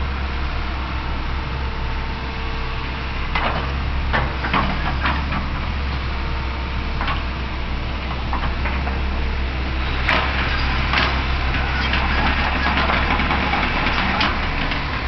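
Fiat-Hitachi EX135 excavator's diesel engine running steadily at work, with scattered knocks and clatter from about three seconds in, coming thicker in the second half.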